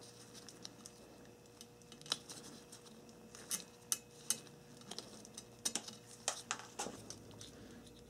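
Light clicks and ticks of a thin metal pick working against a plastic automotive wiring connector, prying at a terminal's retaining clip; about a dozen scattered clicks.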